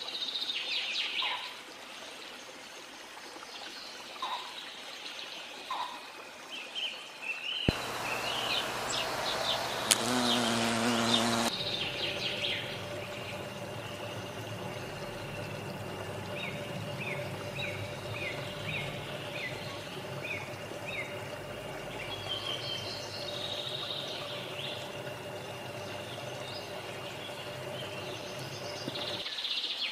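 Background ambience with short bird-like chirps over a steady noise. About eight seconds in the sound changes abruptly to a louder, noisier stretch for a few seconds, then settles into a steady hum with a run of short falling chirps.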